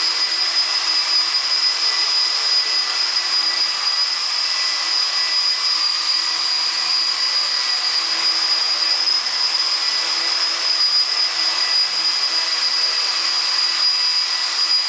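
HK250GT 250-size electric RC helicopter hovering: a steady, high whine from its motor and gears over the hiss of the spinning rotor blades.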